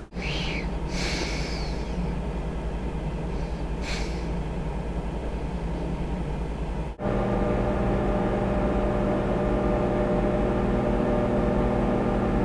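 A steady low hum with a few short rustles as food is handled at an open refrigerator. About seven seconds in the sound cuts to a microwave oven running, a steady hum.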